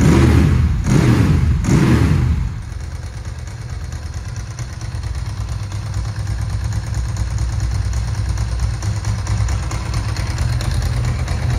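Ducati 888's 90-degree Desmoquattro V-twin running: revved in two quick blips, then settling to a steady idle.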